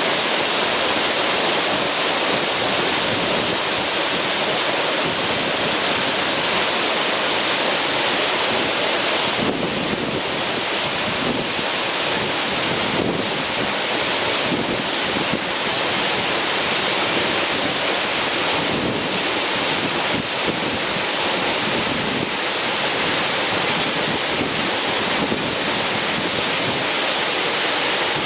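Waterfall, a steady loud rush of falling water. From about ten seconds in, low gusts of wind buffet the microphone.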